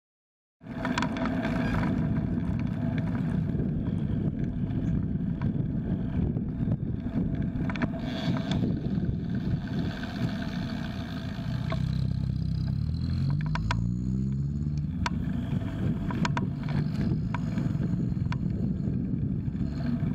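Wind buffeting a bike-mounted camera's microphone along with road and traffic noise, cutting in abruptly about half a second in. About twelve seconds in, a nearby motor vehicle's engine climbs in pitch as it accelerates.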